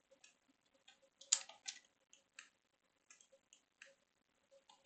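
Irregular light clicks of a computer mouse and keyboard, with a quick cluster of louder clicks about a second and a half in.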